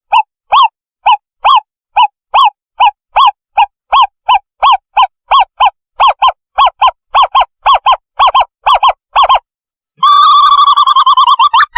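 Recorded owlet call played as a bird-trapping lure: a series of short hooting notes, two to three a second and getting faster, then after a short pause a quavering trill about ten seconds in.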